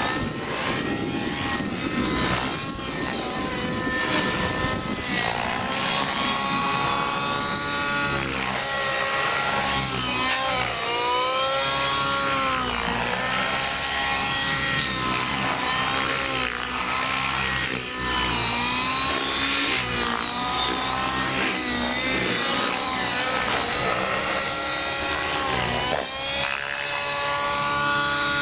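Align T-Rex 700 Nitro radio-controlled helicopter's glow engine and rotor running hard through 3D aerobatics. Its whine swoops down and back up in pitch again and again as the manoeuvres load and unload the rotor.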